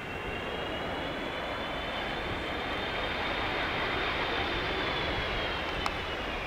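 Airbus A330-300 airliner on final approach, its twin turbofan engines giving a steady rush with a high whine, slowly getting louder. The whine drops in pitch near the end as the aircraft passes.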